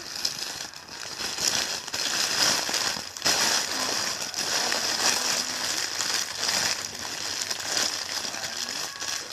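Plastic crinkling and crackling continuously as it is handled and squeezed.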